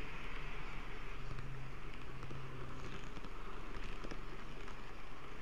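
N-gauge model train running along the track, picked up by a camera riding on it: a steady whirring rumble with a low hum, and faint ticks of the wheels over the rail from about halfway through.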